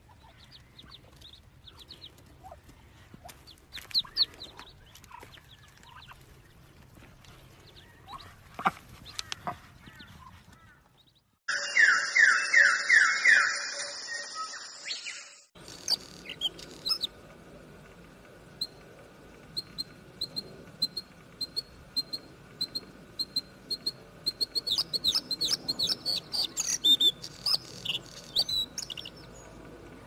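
Ducklings peeping faintly. About eleven seconds in, a loud burst of fast repeated notes lasts about four seconds. Then a male bluethroat sings: a long run of repeated high notes that turns into a quick, varied warbling phrase near the end.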